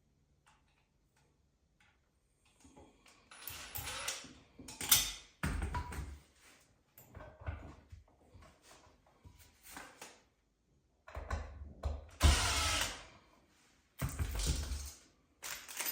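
A wired single-pole wall switch being pushed into its electrical box and fastened with long mounting screws: irregular scraping and clicking handling sounds, loudest about five seconds in and again near the end.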